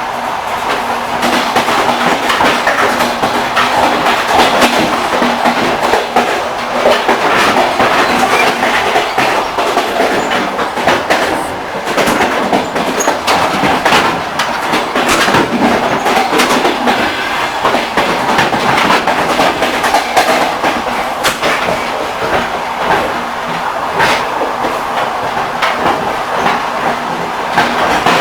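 Railway carriage wheels clacking over the rail joints, a run of sharp clicks over the steady rumbling noise of a moving train.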